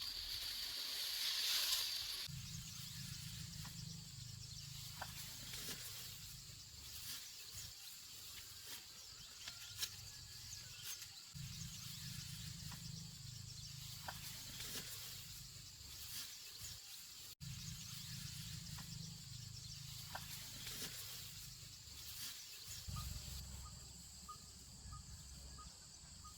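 Open-air rural ambience: a steady high insect buzz runs throughout, with a low rumble that comes and goes in stretches and a few faint clicks.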